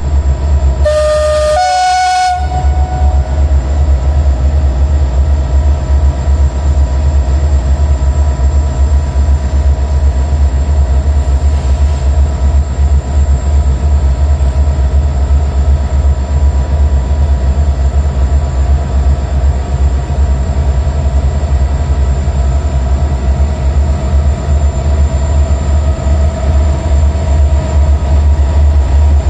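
Diesel locomotive sounds a two-note horn blast, a lower note then a higher one, about a second in, then its engine rumbles steadily as it pulls its train along the platform, growing louder near the end as it comes close.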